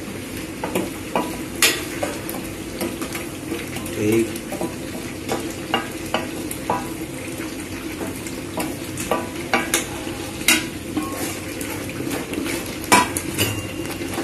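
Metal spoon stirring and scraping masala gravy frying in a pan, with a soft sizzle and frequent irregular clinks of the spoon against the pan over a steady low hum; the sharpest clink comes near the end.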